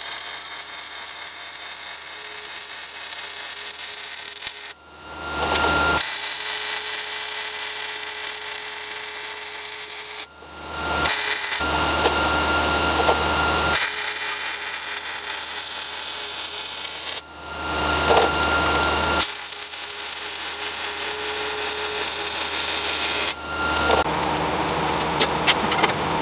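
Power tools working steel plate, a loud steady noise that breaks off abruptly several times and comes back, sometimes building up again over about a second.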